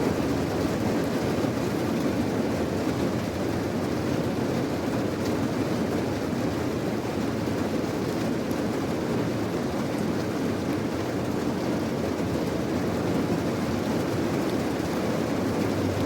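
Steady rain: an even, low rushing noise with faint scattered drop ticks above it.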